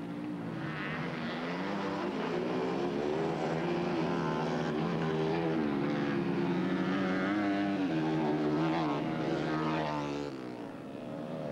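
Several dirt-bike engines running and revving, their pitch rising and falling as the bikes ride the track.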